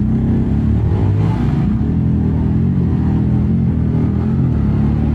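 Several motorcycles, among them a Royal Enfield Bullet, a Bajaj Pulsar 220 and a Yamaha R15, revving together at standstill, their engine notes rising and falling over one another.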